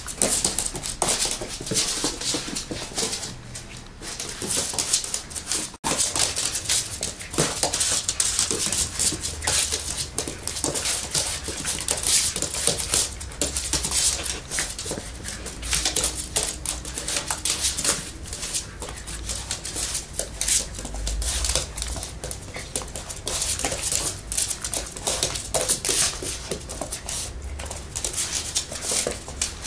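Claws and paws of a sheltie puppy and a Siamese cat clicking and scrabbling on a wooden floor as they play-fight: a dense, uneven run of quick taps and scuffs. It breaks off for an instant about six seconds in.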